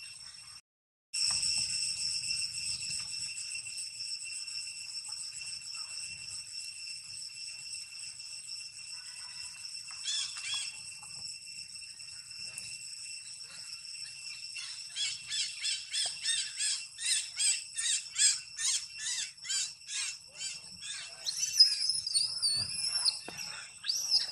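Tropical insect chorus: a steady, high, shrill drone that from about halfway turns into a regular pulsing of about two beats a second, with a wavering high call near the end.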